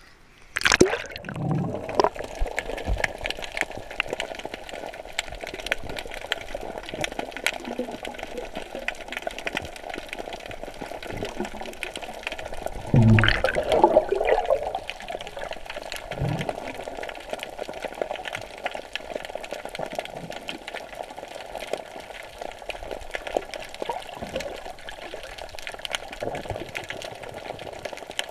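Water heard through a camera held underwater while snorkelling: a steady, muffled rushing. There is a loud splash as it goes under about a second in, and a louder burst of water noise about halfway through.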